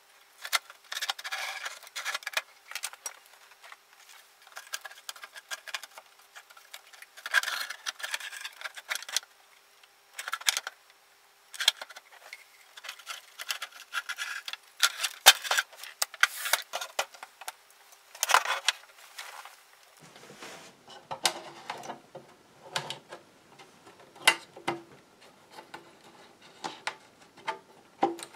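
Irregular clicks, clinks and rattles of metal parts being handled as an old valve wire recorder's metal chassis and panels are taken apart and lifted out of its case.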